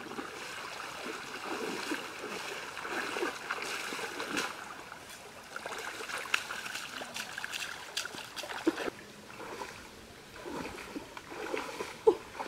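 Splashing steps of a person wading through a shallow river, over the steady rush of the stream. The splashing dies down about nine seconds in, and a few scattered knocks and steps follow near the end.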